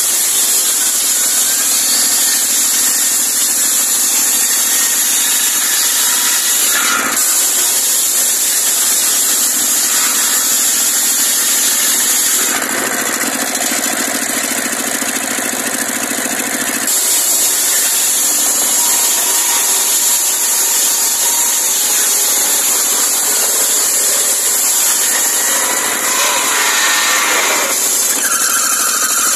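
Engine-driven circular saw bench running, its spinning blade cutting through logs and branches over a steady engine note. The sound shifts several times as cuts begin and end.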